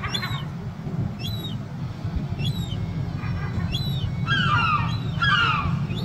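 Juvenile gull begging: thin, high calls about once a second, then from about four seconds in a quick run of louder whining calls, each falling in pitch.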